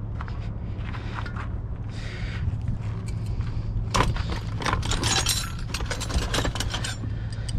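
Metal hand tools and parts clinking and rattling, with a dense run of sharp clinks from about four to six and a half seconds in, over a steady low hum.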